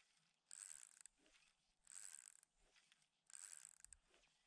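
Fishing reel being cranked in short turns, a fine ratcheting whirr three times, about every second and a half.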